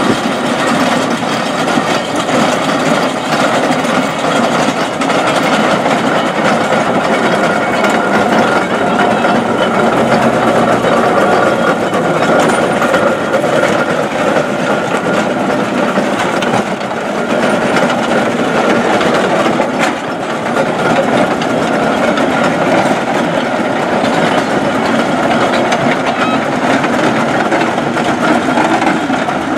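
Steam roller driving past on the road: a steady rumble and clatter of the engine and its iron wheels and rolls.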